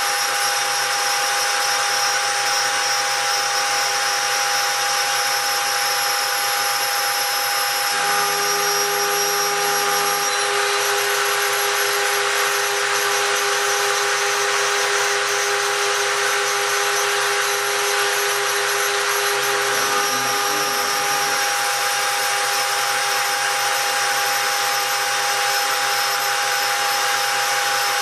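Spindle of a homemade CNC gantry milling machine running steadily while engraving brass, giving a constant whine over hiss. The lower hum shifts briefly about eight seconds in and again around twenty seconds in.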